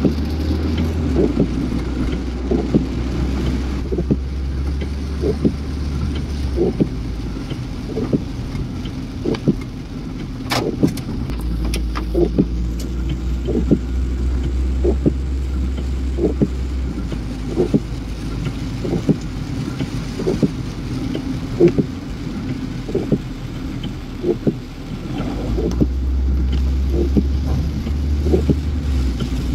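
Inside a car driving through heavy rain: steady engine and tyre rumble on the wet road, with rain on the car. A regular knock comes a little more than once a second.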